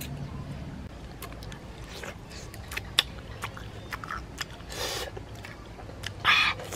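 Close-up chewing and lip-smacking on grilled chicken wings: scattered wet clicks, with two short hissing breaths, the louder one near the end. A low background rumble stops about a second in.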